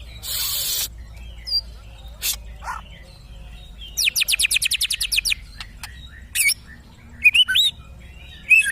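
White-rumped shama (murai batu) song: a harsh noisy burst at the start, then a rapid trill of about ten quick descending notes a second, and curling whistled notes near the end.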